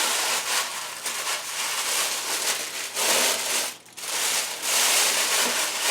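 A plastic oven bag crinkling and rustling as it is handled, tied shut with its tie and tucked into a pan. The crinkling comes and goes unevenly, with a brief lull a little before four seconds in.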